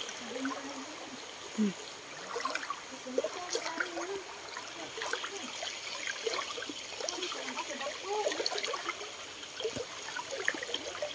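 Shallow creek trickling and gurgling over stones: a steady water hiss with many small bubbling gurgles and a few light clicks.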